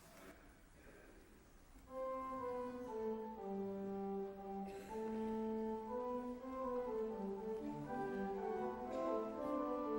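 Quiet room tone for about two seconds, then instrumental music begins: slow, sustained notes in several parts moving together in chords.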